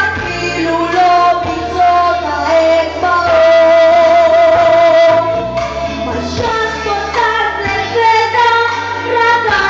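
A pop song: a sung melody over band backing, with one long held note in the middle.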